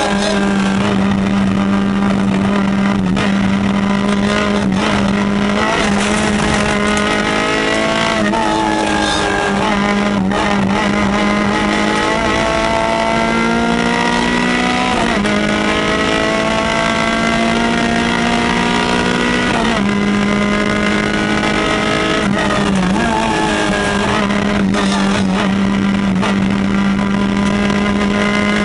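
Peugeot 205 rally car engine heard from inside the cabin under hard acceleration, its pitch climbing through each gear and dropping sharply at each of several gear changes.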